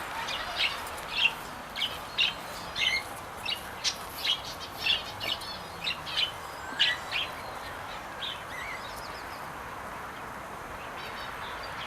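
Small aviary birds chirping: short high chirps, about two a second, which stop about eight seconds in, over a steady background hiss.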